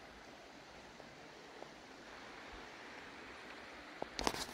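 Faint, steady rushing of a river below the forest track, with a few footsteps on the track starting near the end.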